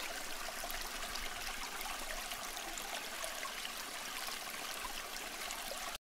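Steel axe head swished and held in a basin of etching liquid: a steady watery sloshing with a fine crackle of fizzing bubbles, cutting off abruptly near the end.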